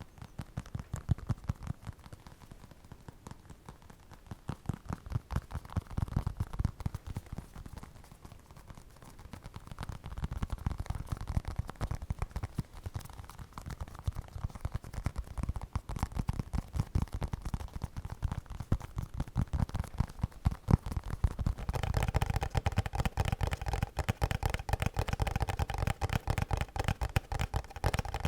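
Rapid, dense ASMR tapping and scratching with fingertips or nails on objects. Partway through, the taps take on a ringing tone, as from a resonant object being tapped.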